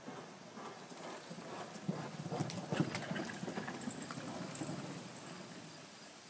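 Hoofbeats of a ridden stallion moving fast over soft arena dirt, a quick run of dull thuds that grows loudest about halfway through and then fades.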